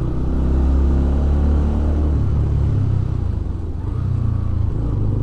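Benelli BN125's 125 cc single-cylinder engine running steadily while the motorcycle is ridden at low town speed, with a brief dip in the engine note about three and a half seconds in.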